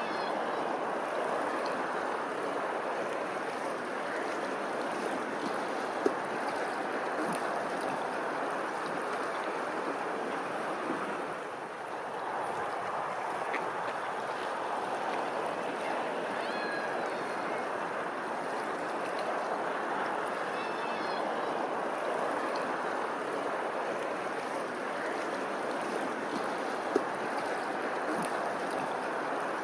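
Running water, a steady rush, with two brief sharp clicks, one about six seconds in and one near the end.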